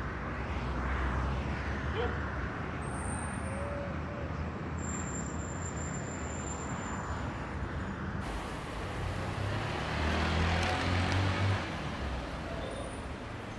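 City street traffic noise: a steady low rumble of passing vehicles, swelling louder a little after ten seconds in.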